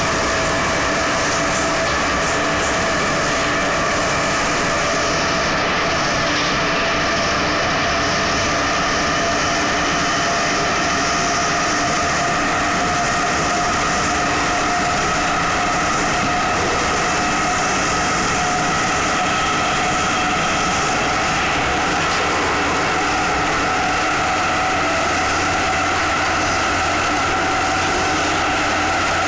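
Inside a Soviet-built 81-71 metro car under way: a steady, loud running noise of wheels on rail, with several whining tones from the drive that climb slowly in pitch as the train gathers speed.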